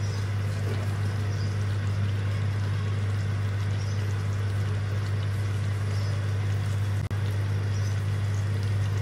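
A pot of chicken qorma simmering on a low flame, heard as a faint even hiss under a steady low hum. The sound cuts out for an instant about seven seconds in.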